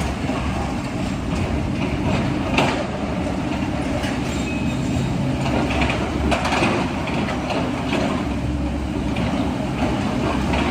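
Heavy machinery running steadily, with a few sharp clanks.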